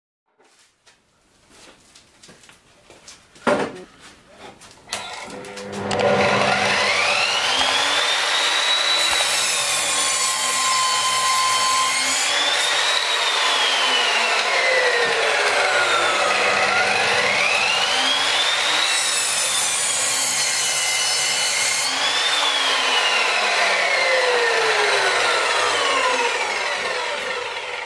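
Electric motor and blade of a Parkside 2000 W sliding mitre saw: a few clicks and a sharp knock, then the saw spins up to a high whine and runs on, the whine twice sinking slowly and rising again as the blade cuts through wood.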